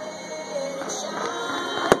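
Music playing over a fireworks display, with one sharp firework bang just before the end.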